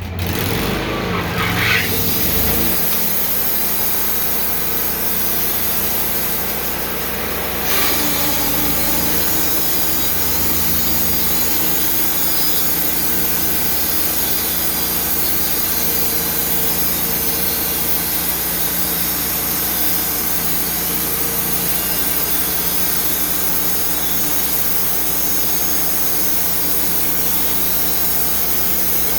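Portable sawmill running steadily, its engine driving the blade through a log during a cut; the sound steps up slightly about seven or eight seconds in.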